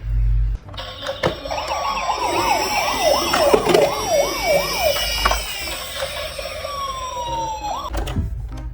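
Several toy emergency-vehicle sirens (ambulance and police car) sounding at once, with a fast up-and-down yelp of about three sweeps a second for a few seconds, then a slower falling wail near the end. A low thud comes at the very start.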